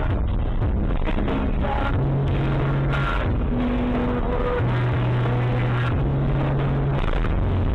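Electronic background music with held bass notes changing in steps, loud and steady.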